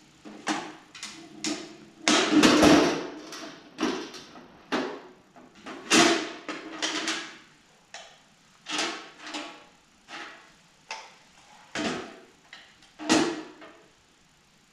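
Metal drill bits clinking and rattling as they are handled and sorted through, in irregular clatters with pauses, loudest about two seconds in and again near the end.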